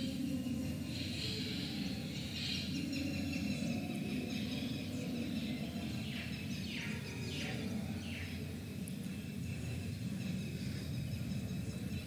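Steady background ambience of a stadium broadcast feed between throws, with a few faint high chirps in the middle.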